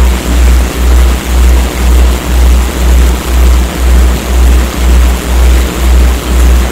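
Synthesized morphic-field audio: a loud, deep hum that pulses evenly about twice a second, over a steady hiss of noise.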